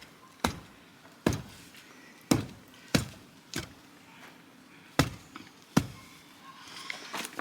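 A series of seven sharp knocks at irregular intervals of about a second, with a pause after the fifth.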